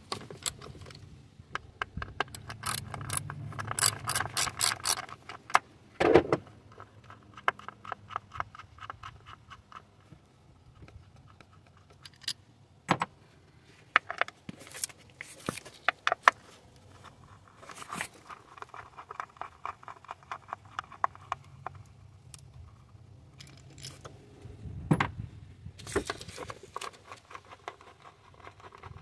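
Hand ratchet clicking in several quick runs as the 10 mm ignition coil hold-down bolts are backed out, with sharp metal clinks and knocks of the socket and bolts between runs.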